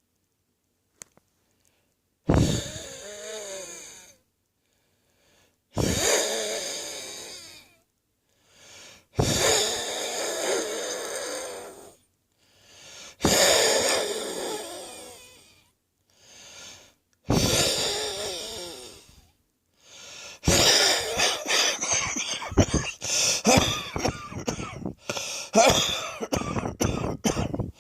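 A person's wheezing from a viral chest infection: five long rasping breaths out, each starting abruptly and fading over about two seconds, with short gasps in between. About twenty seconds in, this breaks into a long fit of rapid coughs.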